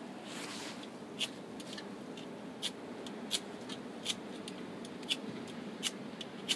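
Flint and steel being struck again and again: a run of sharp scraping clicks, roughly one a second or a little faster.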